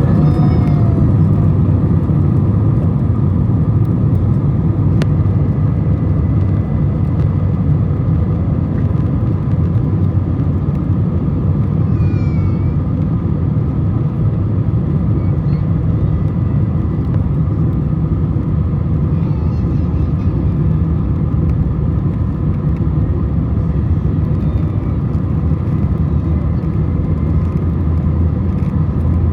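Airbus A321 airliner's steady engine rumble, with thin steady whining tones above it and no change in level.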